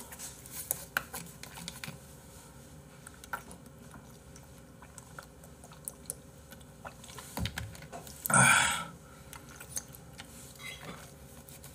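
A man drinking from a plastic drink bottle: scattered light clicks and crinkles from handling the bottle, and a loud breathy rush of noise about eight seconds in.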